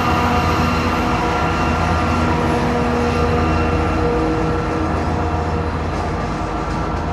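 2TE116U diesel locomotive running under power, its turbocharger whistle held as steady high tones over the diesel engine's drone. The sound eases off slightly near the end.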